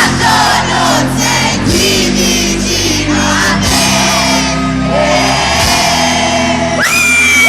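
Live pop band performing a song in a large hall, a singer's voice over steady band chords, with the crowd singing along. Near the end a high voice slides up and holds a long note.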